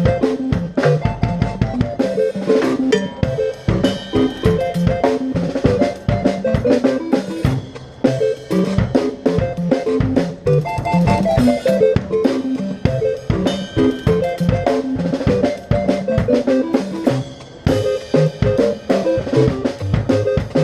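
Music: a drum kit keeping a busy beat of bass drum and snare under a running melody of short pitched notes.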